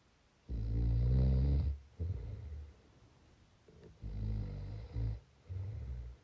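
Snoring in a steady rhythm. A loud snore of over a second is followed by a shorter, softer one, and the pair comes twice, with quiet pauses of breath between.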